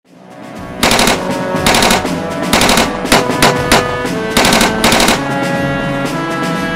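Several short bursts of machine-gun fire, a sound effect laid over music; the shooting stops about five seconds in and the music carries on.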